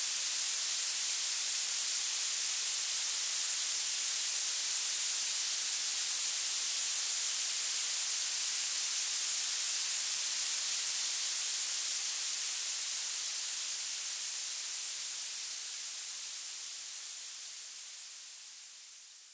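Violet noise: a steady, thin, very high-pitched hiss, strongest in the highest frequencies with almost no low end. It fades out gradually over the last seven seconds or so.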